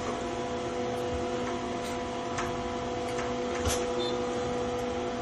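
Steady machine hum made up of several even tones over a faint hiss, with a few faint short clicks.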